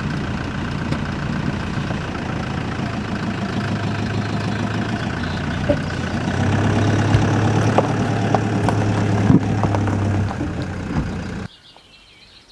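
Husqvarna 365 two-stroke chainsaw engine running steadily, louder for a few seconds in the middle, with a few sharp knocks; the sound cuts off abruptly near the end.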